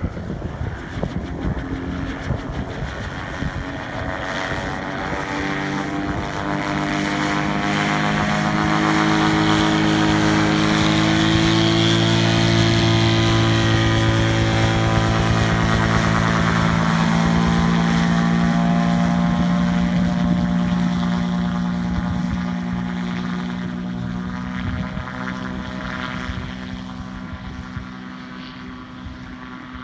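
Tango2 Mk.II gyroplane's engine and pusher propeller at takeoff power: a steady drone that grows louder as it rolls toward and past, drops in pitch as it goes by, and fades as it climbs away.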